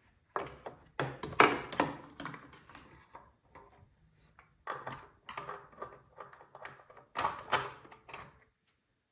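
Irregular clicks, taps and clatter of hand tools and small engine parts being handled as a generator's carburetor is reassembled. The sounds start about half a second in, come in clusters, and stop shortly before the end.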